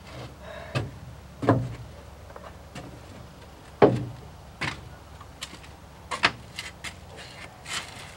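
A handful of scattered knocks and thumps as a person moves around a bare primered truck cab and handles it. The loudest comes about four seconds in.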